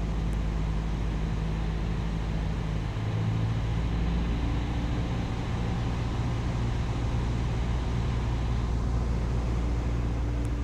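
Single-engine light aircraft's piston engine and propeller running steadily in flight, heard inside the cabin as a constant low drone.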